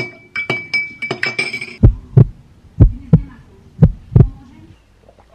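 A spoon clinking quickly against a drinking glass, making it ring, as something is stirred. Then about a second and a half later come six loud gulps in three pairs as the drink is swallowed.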